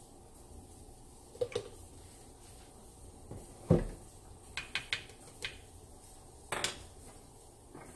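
Kitchen handling noises: one heavy thump a little under four seconds in, as the plastic jug of cooking oil is set down on the countertop, and a scattering of light clicks and clinks of utensils around it.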